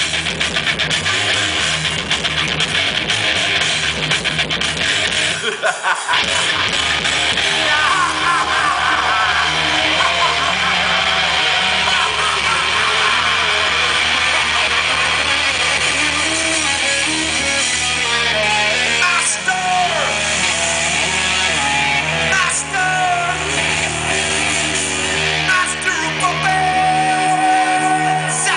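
Live heavy metal band with distorted electric guitars, bass and drums playing a fast riff. The playing breaks off about six seconds in, then held guitar and bass notes ring on while the crowd cheers and whistles at the song's close.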